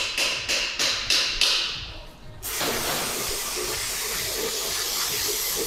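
Diesel fuel pouring steadily from a tipped canister through a funnel, a continuous hiss that starts abruptly about two and a half seconds in. Before it, a rhythmic tapping beat, about three strokes a second, fades out.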